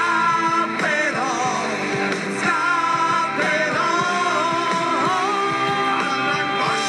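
Live rock band playing: drum kit, electric guitars, bass and keyboard under sung lead vocals. The singing holds long, wavering notes over a steady drum beat.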